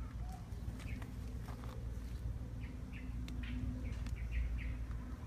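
Small birds chirping in short, quickly repeated calls, mostly in the second half, with a few sharp clicks and a steady low rumble underneath.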